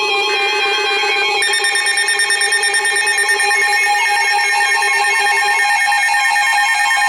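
Several weather radios sounding their alert alarms at once: layered electronic beeping and warbling tones, some cutting out and others joining partway through.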